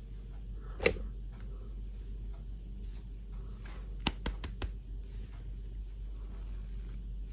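Hands handling a plastic fashion doll and its dress: one sharp click about a second in, then a quick run of four small clicks about four seconds in, with soft rustles between, over a steady low hum.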